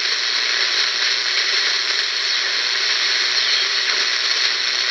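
WWII BC-454B shortwave receiver giving a steady hiss of band noise as it is tuned between stations, with a faint whistle sliding down in pitch about three and a half seconds in.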